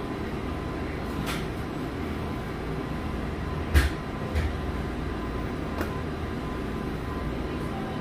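Steady low hum and rumble of running machinery, with a few light clicks and two soft thumps a little before and after the middle.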